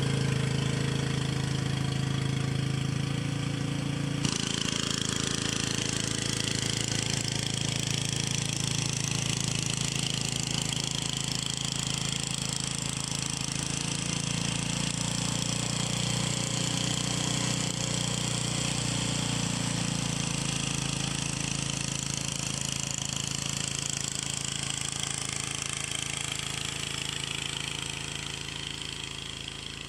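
Snowblower engine running steadily as it clears snow, its tone changing abruptly about four seconds in and fading over the last few seconds as the machine moves away.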